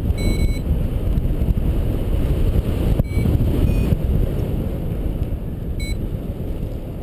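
Airflow buffeting the microphone in paraglider flight, a steady low rumble, with four short high beeps from the flight variometer scattered through it.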